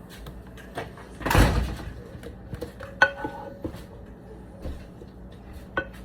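Kitchen utensils being handled while batter is portioned into metal cake pans: a brief scraping swish about a second and a half in, then a sharp clink with a short ring and a few lighter clicks.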